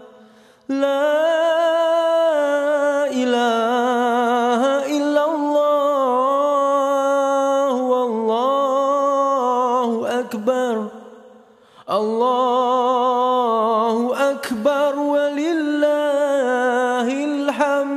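A single unaccompanied voice chanting long, held notes that waver and turn in ornamented phrases, with a pause for breath about ten and a half seconds in.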